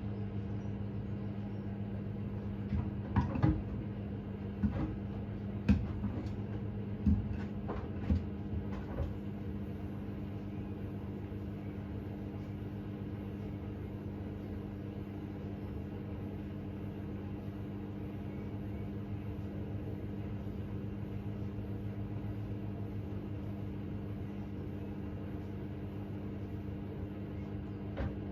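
Hoover H Wash 600 washing machine running with a steady hum, with a run of sharp knocks between about three and nine seconds in, then only the hum.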